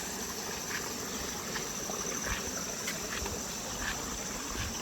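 Insects chirring in a steady high-pitched drone, with short chirps repeating about once a second over a low rumble of wind on the microphone.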